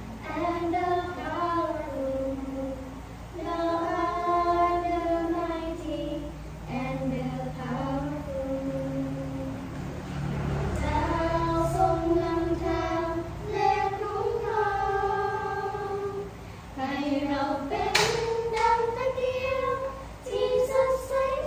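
A group of women and children chanting a prayer together in unison, on slow, long-held notes with short pauses between phrases.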